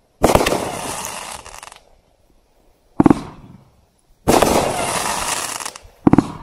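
Dominator 500-gram consumer fireworks cake firing shots that burst in the sky. A sharp bang about a quarter second in is followed by a rush of noise that fades over about a second and a half. Another sharp report comes about three seconds in, then a longer rush of noise and two quick bangs near the end.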